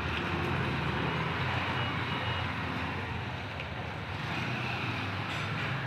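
Motorcycle and scooter engines running at low speed as the two-wheelers pull away, a steady low engine hum.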